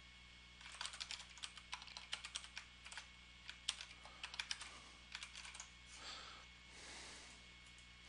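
Faint typing on a computer keyboard: a quick, uneven run of key clicks that stops about two-thirds of the way through.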